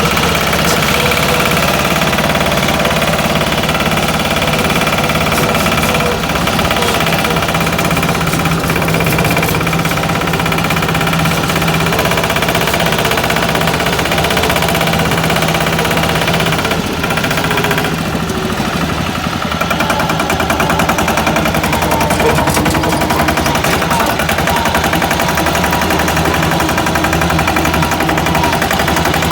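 Single-cylinder diesel engine of a patpat two-wheel farm tractor running with a steady, rapid chugging knock. It dips briefly a little past halfway, then picks up again.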